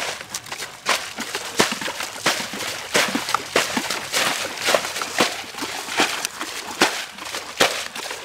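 Pond water being bailed out with a plastic bucket: repeated splashing and sloshing as the water is scooped and flung, one or two splashes a second.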